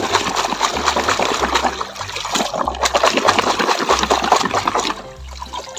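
Muddy water splashing and sloshing as a hand rubs and swishes a plastic toy cement mixer truck through it to wash off the mud; the splashing eases off about five seconds in.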